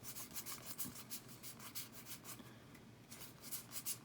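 Pokémon trading cards being slid off a stack one after another, each card giving a soft papery swish. The swishes come about four or five a second, with a short pause about two and a half seconds in.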